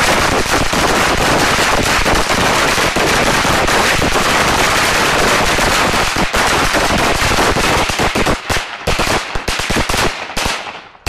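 A string of firecrackers going off in a dense, rapid crackle of bangs, which thins into separate bangs over the last few seconds and stops just before the end.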